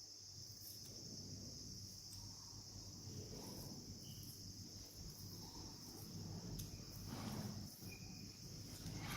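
Faint, steady, high-pitched chirring of insects such as crickets, with faint small handling noises underneath.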